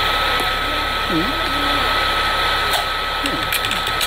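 Computer cooling fan running hard: a steady rushing whoosh with a thin, constant high whine, the sign of a processor at full load and heating up.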